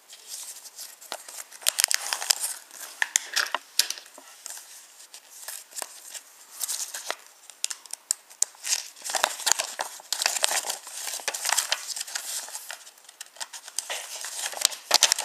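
A paper instruction leaflet being handled and unfolded close to the microphone: dense, irregular crinkling and crackling of paper.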